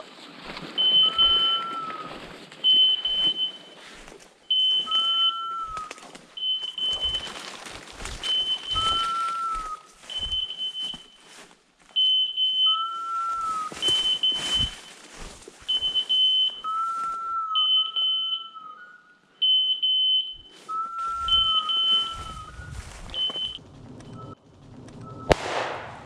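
Electronic beeper collar on a hunting dog, sounding repeatedly: short high beeps about once a second and a lower rising-and-falling tone every few seconds. Bursts of rustling run underneath.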